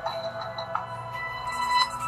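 A Samsung Exhibit 4G ringtone playing: an electronic tune of held notes that change a few times.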